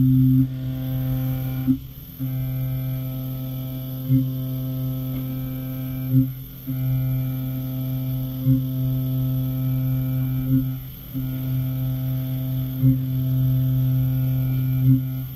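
Fanuc RoboDrill CNC milling machine cutting a metal part under flood coolant: a steady pitched hum from the spindle and cutter, broken by a short sharp knock about every two seconds.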